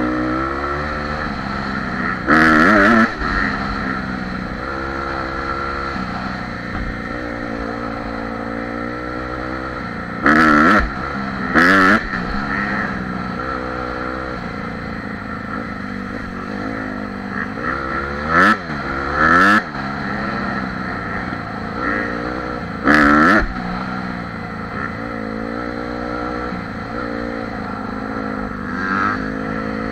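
Dirt bike engine running while riding, its pitch rising and falling again and again as the throttle opens and closes, heard close from the bike's handlebar mount. About six short, very loud bursts of noise break in along the way.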